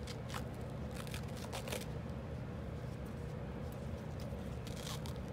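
Rustling, crinkling and tearing of bandage wrap as a duck's injured leg is wrapped, a few sharp crackles over a steady low hum.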